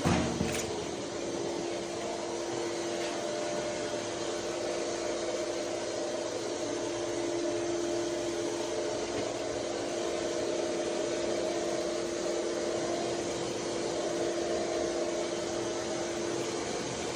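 An electric motor-driven machine running steadily with a constant hum and whine. A short knock sounds right at the start.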